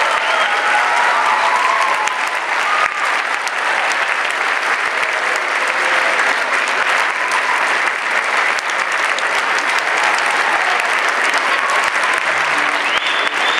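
Audience applauding steadily, with a few shouts of cheering near the start and near the end.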